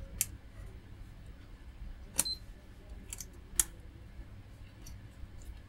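Multimeter test probe tips tapping against components and solder joints on a circuit board: four short, sharp clicks spread over a few seconds.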